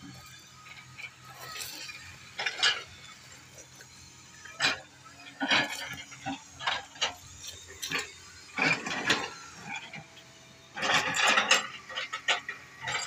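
Footsteps crunching over loose quarry rock rubble, with stones clattering and clinking underfoot in uneven bursts.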